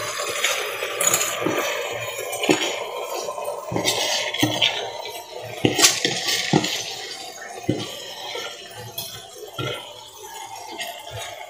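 Drained, soaked rice tipped from a plastic tub into a pot of coconut milk: a soft rustling slide with scattered taps and clinks as the tub and a metal spatula knock against the pot.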